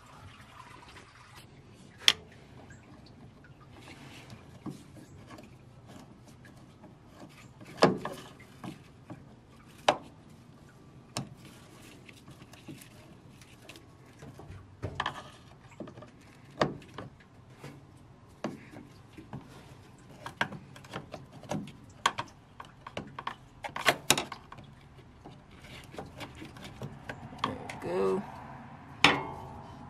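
Scattered clicks, knocks and scrapes of a screwdriver working the hose clamps loose on the heater-core hoses at the firewall.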